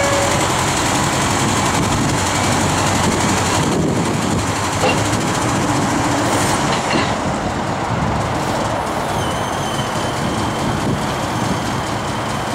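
Caterpillar TH62 telehandler's diesel engine running steadily under load while its hydraulics lower the raised boom, a continuous loud mechanical rumble. A faint high whine joins in about three quarters of the way through.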